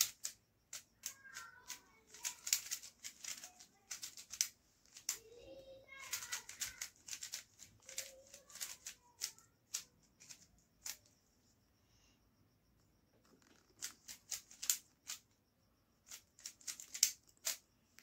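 Plastic Rubik's cube being twisted by hand: runs of quick clicks and clacks as the layers turn, in bursts with short pauses and a longer lull about two-thirds of the way through.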